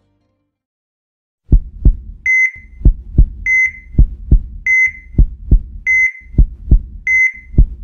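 Heartbeat sound effect starting about a second and a half in: double lub-dub thumps about every 1.2 seconds, each pair followed by a short high electronic beep like a hospital heart monitor.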